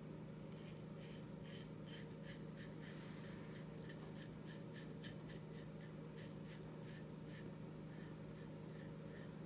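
Colonial General single-edge safety razor with a Feather Pro Guard blade cutting through coarse, lathered stubble: a rapid run of faint, crisp scraping rasps, about four a second, as the blade strokes over the cheek. A steady low hum runs underneath.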